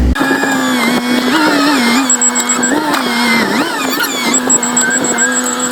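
Skid steer engine running under load, its pitch dipping and recovering several times as the machine works, with a fast high-pitched beeping in the second half.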